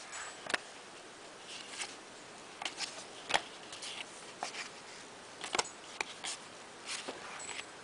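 Trading cards being handled and flipped through: scattered light clicks and rustles of card stock, about seven of them spread irregularly over a faint steady hiss.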